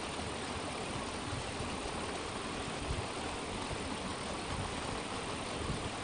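Steady rushing of running water: rain-fed fresh water pouring into the pond at an inlet.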